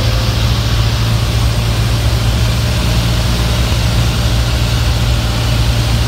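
Steady drone of a Cessna's single piston engine and propeller heard from inside the cockpit in flight, a constant low hum under an even hiss.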